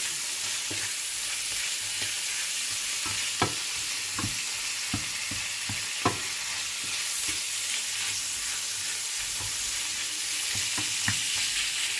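Calamari sizzling as it sautés in oil in a frying pan, a steady hiss as the squid gives off its water. A few scattered clicks of a utensil stirring against the pan.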